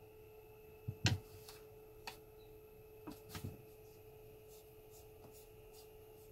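Soft knocks and thumps from a cat moving across the floor, the loudest about a second in and two more about three seconds in, then a few faint light ticks near the end as it noses at a cardboard scratcher. A faint steady hum runs underneath.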